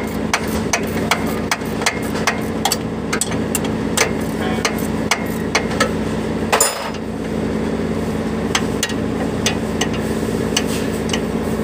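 Hand tools working on metal: quick, sharp metallic taps or clicks, about four a second at first and sparser later, over a steady low hum. There is one brief louder noise about two-thirds of the way through.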